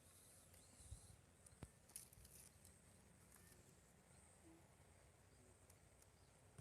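Near silence: faint outdoor background hiss with a few soft knocks in the first couple of seconds.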